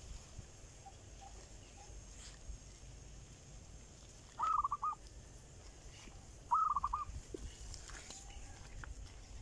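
A bird calls twice, about two seconds apart, each call a half-second run of rapid harsh notes, over a faint low rumble.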